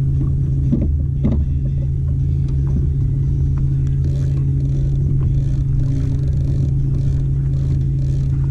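Fishing boat's motor running steadily under way, a constant low hum with a few faint knocks in the first second or two.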